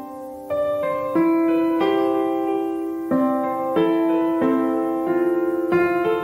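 Background piano music, slow notes and chords each struck and left to fade.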